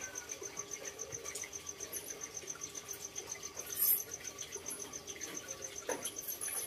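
Cricket chirping in a rapid, even, high-pitched pulse, with a brief knock about four seconds in and a fainter one near six seconds.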